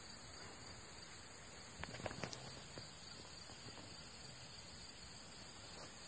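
Steady high-pitched hiss of insects calling in the grass, with a few faint short clicks about two seconds in.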